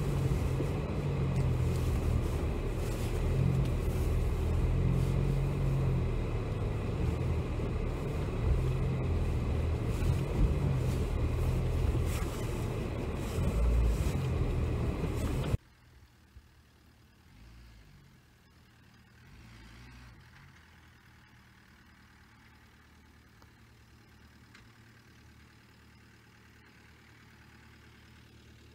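Dacia Duster driving over a rough sand trail, heard from a bonnet-mounted camera: a loud engine and rumble with frequent knocks from the bumps. About halfway the sound cuts off suddenly to the faint hum of the car's engine far off.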